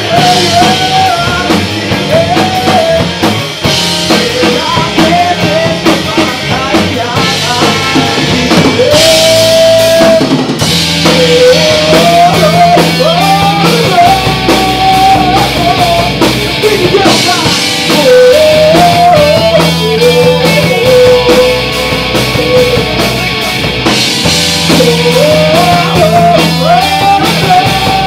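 Live rock band playing: a man singing over electric guitars and a drum kit.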